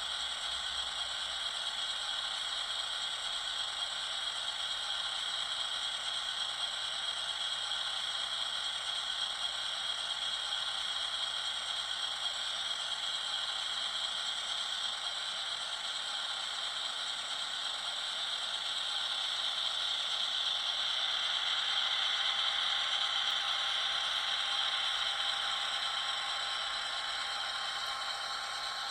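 HO-scale model locomotive's sound decoder playing a GE Dash 8-40CW diesel engine at full throttle, notch 8, through the model's tiny speaker: a steady, tinny rattling drone with no bass that swells a little about twenty seconds in. It is the simulated sound of the locomotive working at maximum power while moving very slowly, as if hauling a heavy train.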